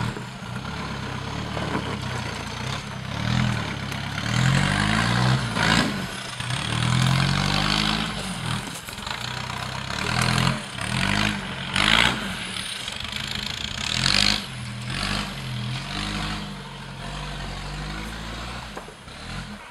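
Modified off-road 4x4's engine revving up and down repeatedly under load as it climbs a steep rutted dirt track, with several sharp louder surges. It grows fainter near the end as the truck pulls away.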